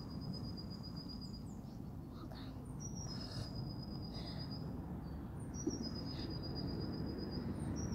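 A cricket trilling: a high, even trill held for about two seconds at a time with short breaks, three times over, with a steady low rumble underneath.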